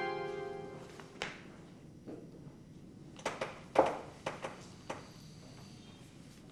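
Background music fading out, then a handful of irregular light taps and knocks, the loudest about four seconds in: footsteps on a hard floor as someone walks up and stops.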